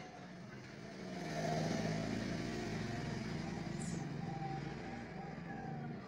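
A motor vehicle passing at a distance: a low engine hum that swells about a second in, then slowly fades.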